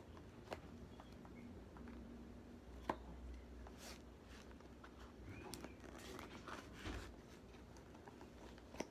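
Faint scattered clicks and scrapes of hands working at a sealed tablet box, trying to pry it open.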